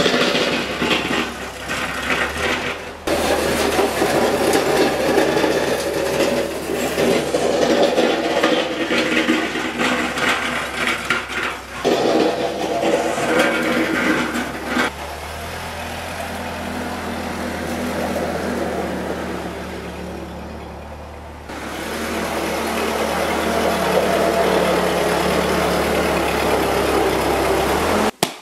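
Ford 2N tractor's four-cylinder flathead engine running as the tractor is driven, its speed rising and falling. It runs smoothly now that the tractor has been split and put back together. The engine is louder in the first half, eases off for a few seconds past the middle, then comes back stronger near the end.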